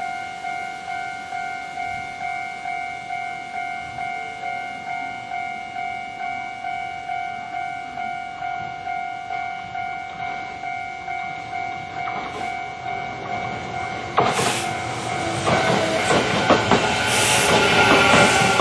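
Japanese level-crossing warning bell ringing in quick, even repeats. About 14 seconds in, an electric commuter train arrives and passes, a loud rush with wheels clattering over the rail joints that grows louder toward the end.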